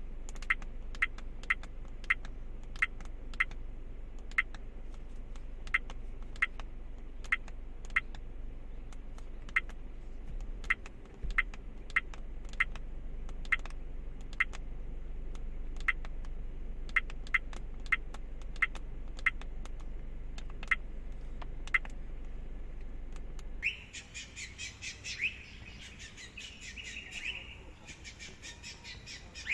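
Toguard CE66 dash cam's button beeps: a short, high beep with each press as its menus are scrolled, a few dozen in all at irregular intervals, over a steady low hum. They stop a little past two-thirds of the way through. After that come rapid chirping bird calls.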